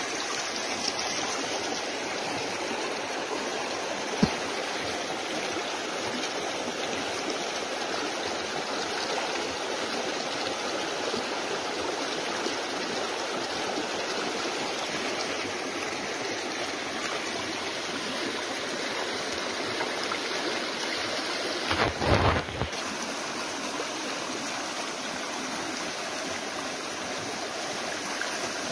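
Fast-flowing creek water rushing steadily, with sand and water poured from a plastic basin over a grass-mat sluice in the current. About three-quarters of the way through, a brief louder rumble rises over the water for about a second.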